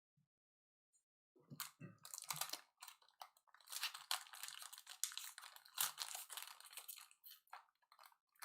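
Faint crinkling and crackling of a foil trading-card pack wrapper being torn open and handled, starting about a second and a half in.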